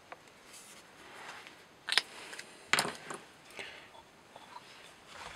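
A few short, sharp clicks and light knocks of handling, the loudest about two seconds in and others near three and three and a half seconds.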